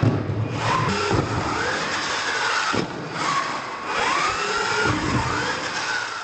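RC monster truck's motor and drivetrain whining as it is throttled up and down, the pitch rising and falling several times, with tyre noise and a few knocks from ramp landings.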